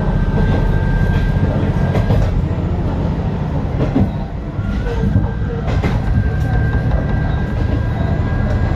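Isumi Railway Kiha 350 diesel railcar running along the line, heard from inside: a steady low engine drone with a thin steady whine over it, and a few sharp clicks of the wheels over rail joints.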